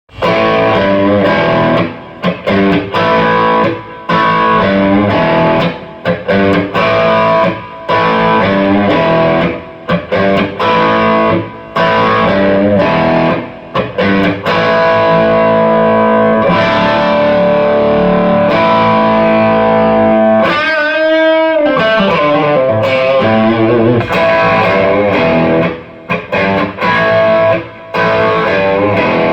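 Electric guitar played through distortion and effects: chords and riffs that stop and start every second or so, with a wavering, bending note about two-thirds of the way through.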